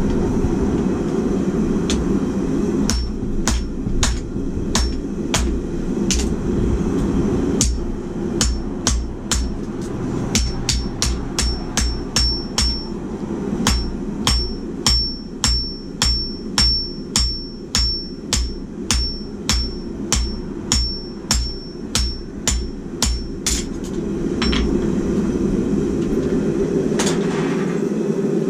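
A hand hammer strikes red-hot steel on an anvil, about two blows a second for some twenty seconds, many blows with a high ring. A steady low rushing noise runs underneath and continues after the hammering stops.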